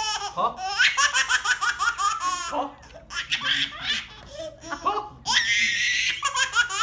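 A baby laughing hard in runs of short, repeated bursts, rising to a high squeal about five seconds in.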